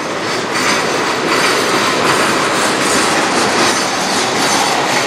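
Cars of a freight train rolling past, wheels clattering on the rails with some wheel squeal.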